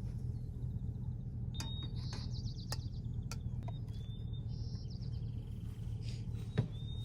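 Small birds chirping and trilling a few times over a steady low rumble.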